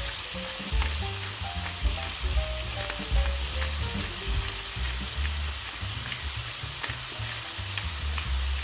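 Spice-coated raw chicken pieces sizzling in hot cooking oil in a frying pan, with frequent sharp crackles of spitting oil.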